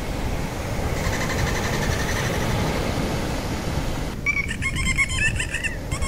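Dolphins vocalizing underwater: a faint buzzing pulse over low water noise, then from about four seconds in, rapid warbling whistles and chirps.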